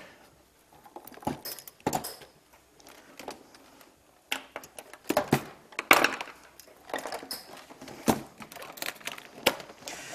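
Test leads and instruments handled in an open metal test-equipment case: scattered clicks, rattles and knocks, the loudest about six seconds in, with the case lid shut in the second half.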